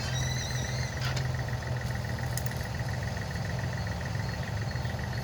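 Engine of a compact construction machine (mini dumper or mini excavator) running steadily with a low drone, a brief high chirp in the first second.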